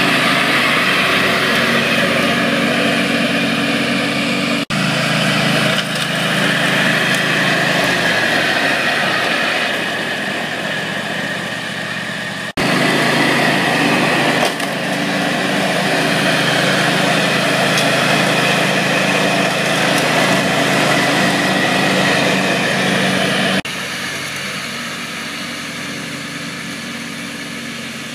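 John Deere ride-on mower's engine running steadily as it drives across the lawn, breaking off abruptly a few times at edits, and quieter in the last few seconds as the mower is heard from further off.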